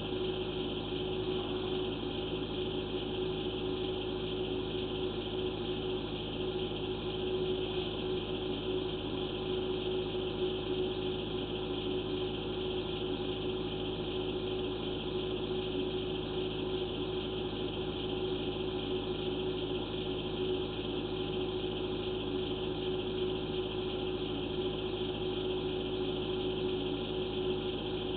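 A steady, unchanging hum of running equipment: one strong constant mid-pitched tone over fainter tones and a hiss.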